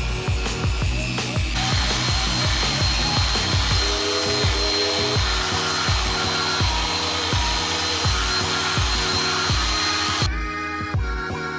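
Background music with a steady beat, over an electric rotary polisher with a foam pad buffing a polished wheel, its motor giving a steady high whine. The polisher comes in about a second and a half in and cuts off shortly before the end.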